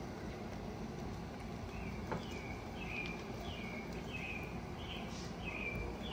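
A bird calling outside: a run of short, falling notes repeated about twice a second, starting a couple of seconds in, over steady outdoor background noise. One sharp tick about two seconds in.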